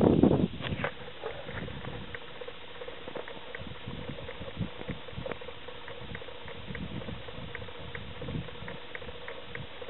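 Small dog licking and chewing a treat from a person's hand: soft smacking with scattered small clicks, over a faint steady hum. A loud rustle cuts off about half a second in.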